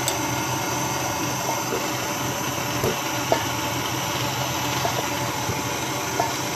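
KitchenAid stand mixer running steadily at low speed, its wire whisk beating egg whites in a stainless steel bowl while hot sugar syrup streams in for Italian meringue. A few faint clicks come through the motor hum.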